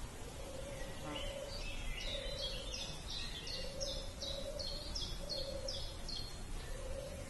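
A small songbird singing a quick series of about a dozen repeated high two-part notes, roughly two or three a second, stopping near the end. A lower steady note sounds on and off several times beneath it over a low outdoor rumble.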